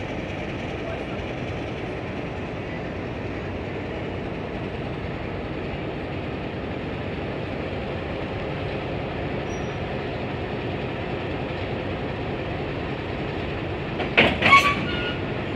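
44 class diesel locomotive running steadily as it eases onto a carriage, then a loud metallic clank of the couplers meeting, a few sharp strikes close together about fourteen seconds in.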